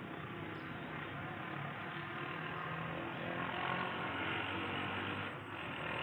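Steady outdoor background noise, an even hiss that swells a little in the middle and dips briefly near the end.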